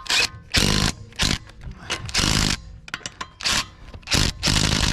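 Impact wrench running lug nuts onto a car wheel in about six short bursts, snugging them without fully tightening.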